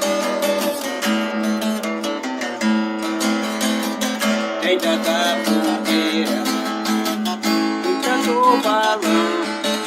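Viola caipira (Brazilian ten-string guitar) strummed in steady chords with a picked melody over them, sliding between notes after about eight seconds, as an instrumental intro.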